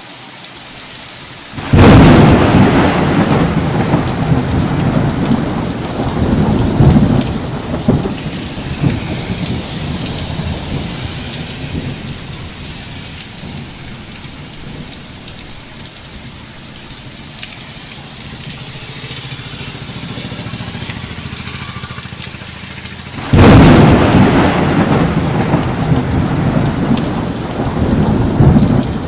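Heavy rain falling steadily, with two loud thunderclaps: one bursts in about two seconds in and rumbles away over several seconds, and another breaks near the end.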